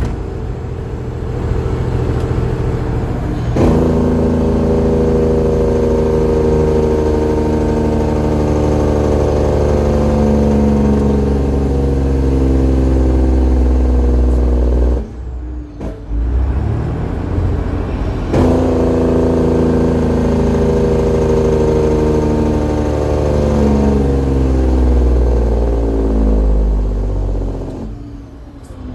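Detroit Diesel Series 60 12.7-litre six-cylinder truck engine working under a 135,000 lb load, its revs sinking slowly in gear. About a quarter of the way in and again near the middle, the sound drops briefly for a gear change and comes back at higher revs, then sinks again.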